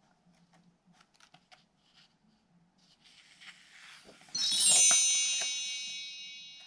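A shimmering wind-chime sound: a cascade of high bell tones sweeps down about four seconds in, then rings on and fades over the next two seconds. Before it come faint clicks and paper rustling as a book page is handled.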